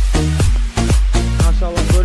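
Background music: an upbeat dance track with a heavy bass line and a steady drum beat.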